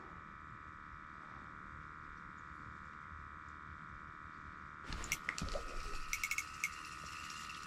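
A run of quick clicks and rattles from the ice-fishing reel and tackle as a fish is brought up through the hole, starting about five seconds in, over a faint steady high whine.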